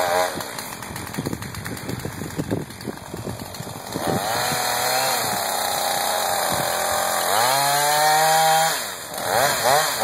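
Husqvarna two-stroke chainsaw running unevenly at low speed for about four seconds, then throttled up to high revs at the base of a tree. The revs climb again about seven seconds in, dip briefly near nine seconds, and rise and fall in quick bursts at the end.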